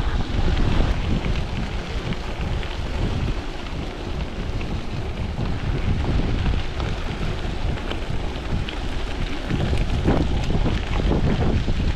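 Wind buffeting a chest-mounted action camera's microphone while riding a gravel bike, with the tyres crunching and rattling over loose gravel as a steady rumble.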